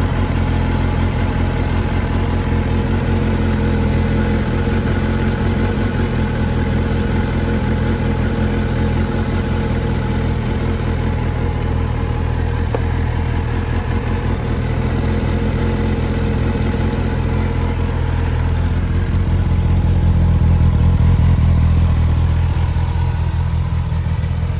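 Kawasaki ZX-10R's 998 cc inline-four idling steadily through an Akrapovic exhaust, the note shifting slightly and growing a little louder about three-quarters of the way through.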